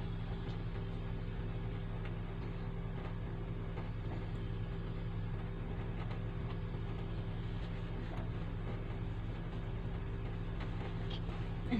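Steady low motor hum with a few constant tones and no change in pitch or level, typical of a small electric appliance motor running.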